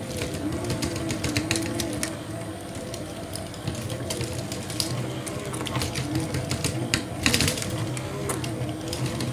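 A K'Nex Zipper ride model running on its grey 12 V K'Nex motor: the plastic gears, chains and rotating boom whir with a dense, irregular clatter of plastic clicks, louder about three-quarters of the way through.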